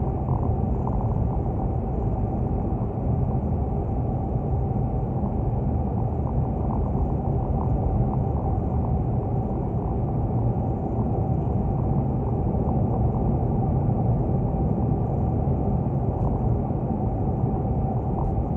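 Steady road noise inside a car's cabin at highway speed: tyre and engine rumble with a thin steady hum.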